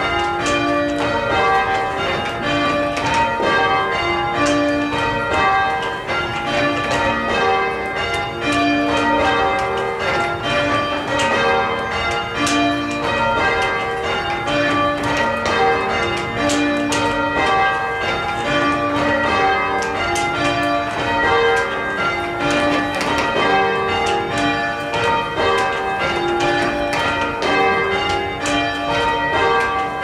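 Cathedral tower bells rung full circle by a band pulling ropes, striking one after another in a steady, continuous sequence of overlapping notes.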